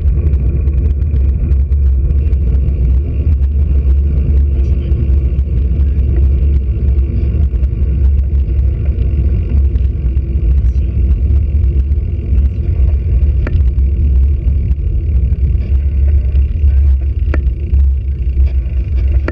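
Steady loud low rumble of wind buffeting a handlebar-mounted camera's microphone on a moving road bicycle, mixed with road and tyre noise. A couple of faint clicks sound in the second half.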